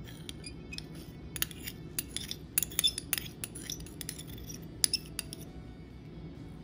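A spoon clinking and scraping against a small glass dish as thick sauce is scraped out into a ceramic bowl: a run of sharp clinks, loudest a little under three seconds in and again near five seconds.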